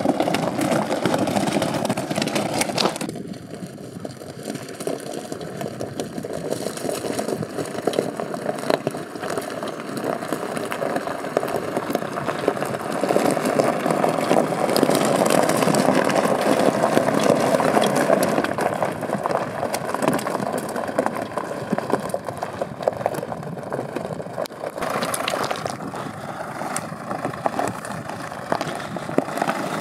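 A 4x4's engine running at low revs, with many small clicks and rattles over it. The sound turns duller abruptly about three seconds in and brighter again near the end.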